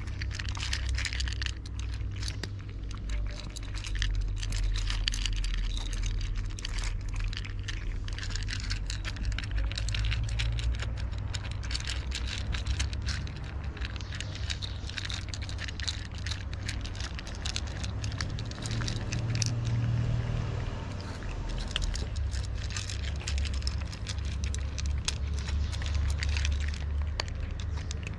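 Several cats crunching dry kibble and nosing it around in plastic trays: a dense run of small crisp clicks and crackles. A steady low rumble runs underneath.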